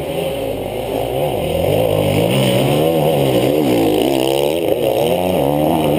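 Several enduro dirt bike engines revving up and down under load as the bikes climb a steep slope, their pitches rising and falling and crossing one another.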